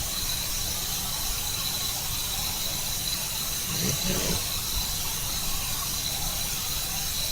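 Sleeping tabby cat breathing quietly, with one faint breath about four seconds in. Under it runs a steady hiss with a thin high-pitched whine.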